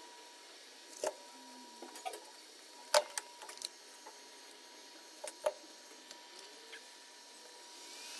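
A few sharp clicks and knocks of a BenQ DLP projector being handled, over a faint steady whine. Near the end the projector's cooling fan spins up, with a rising whine and a growing rush of air, as it races after an overheating shutdown.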